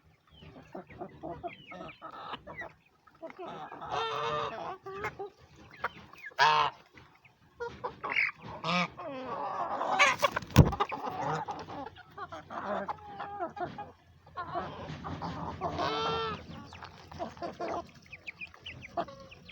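Chickens clucking with repeated short calls, and one sharp knock about ten seconds in.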